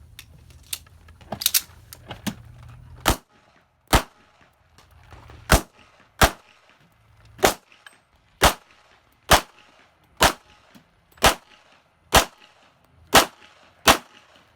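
Pistol shots from a .40 S&W STI handgun fired one at a time about a second apart, about a dozen loud shots starting about three seconds in. A few fainter cracks come before them.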